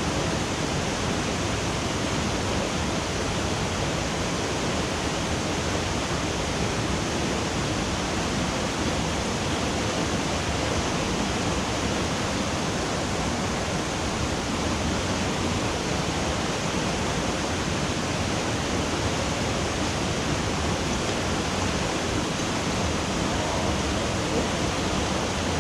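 Mountain stream rushing steadily over rocks, an even wash of water noise that holds level throughout.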